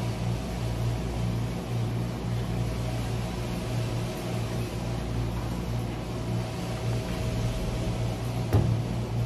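Steady low machine hum, like a running appliance, with a single knock about eight and a half seconds in.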